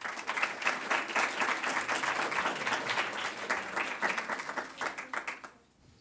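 Applause from a small audience: many hands clapping together, dying away about five and a half seconds in.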